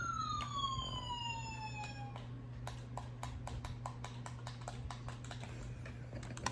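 Toy RC car's electronic siren sound effect: a tone that rises, then falls and cuts off about two seconds in. A run of irregular sharp clicks follows.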